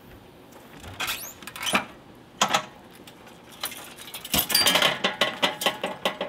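Folding flip-up RV entry steps being lifted and swung up into the doorway: a few separate metal knocks and clanks, then from about four seconds in a dense run of rattling clatter as the steps fold in.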